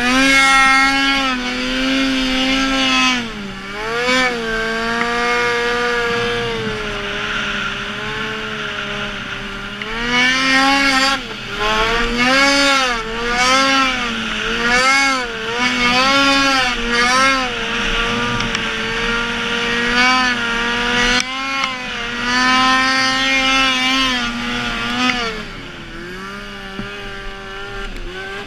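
Snowmobile engine revving up and down over and over as the rider works the throttle, the pitch rising and falling every second or two. The engine eases off to a lower, steadier note for a while near the end.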